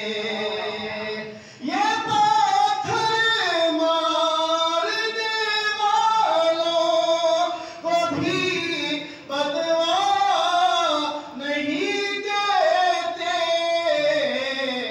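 A man singing an Urdu manqabat (devotional poem) solo and unaccompanied, in long ornamented held notes with short breaks for breath between phrases.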